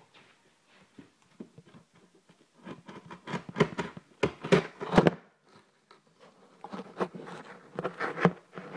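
Scissors cutting and scraping at a cardboard and plastic package, with crackling and rustling of the packaging. The noise comes in two busy spells, about three and seven seconds in.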